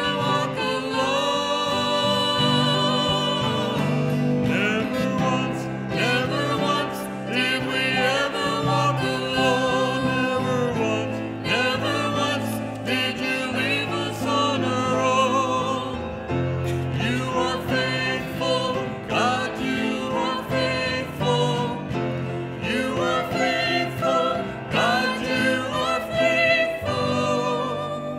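Church worship team singing a contemporary worship song with band accompaniment. The voices hold long notes with vibrato over the instruments, and the music drops away at the very end.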